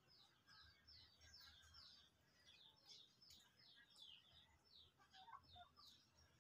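Faint chirping of small birds: a quick, steady run of short, high notes, each sliding down in pitch, about three to four a second.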